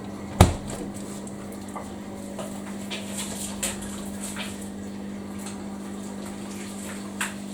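Samsung washing machine's drain pump humming steadily as it pumps out water, with some splashing. A sharp knock about half a second in.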